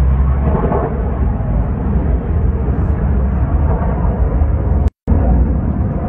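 Jet airliner overhead, its engines making a loud, steady, deep rumble while one engine burns after a bird strike. The sound cuts out for a split second about five seconds in.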